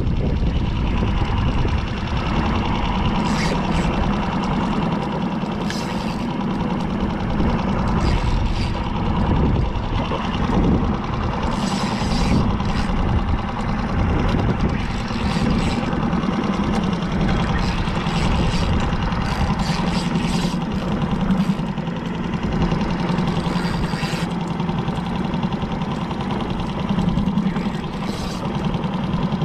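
Small fishing boat's engine running steadily while trolling, a constant low hum with brief hissy bursts of water or wind noise every few seconds.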